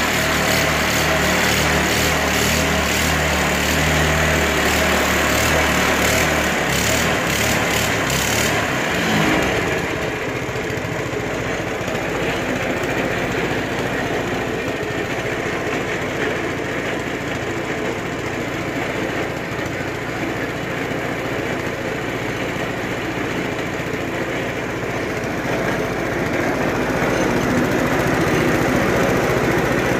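A 212cc Predator single-cylinder small engine running on a homemade belt-drive buggy. Its note changes about nine seconds in and it carries on a little quieter, with a rougher, noisier sound.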